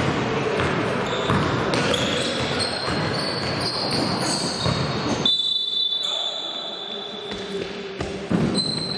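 A basketball bouncing repeatedly on an indoor court during play, with players' voices calling out.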